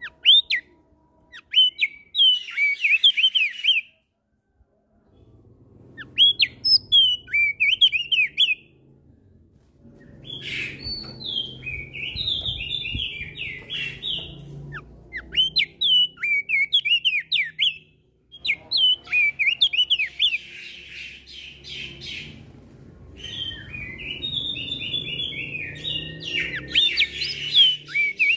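Crested white-eye (opior jambul) singing loud, clear bursts of quick chirping, whistled phrases, with other songbirds calling in answer. The song comes in five or so runs separated by brief pauses.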